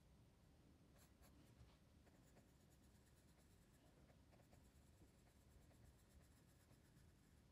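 Faint pencil scratching on paper in many quick short strokes, as of shading being hatched in.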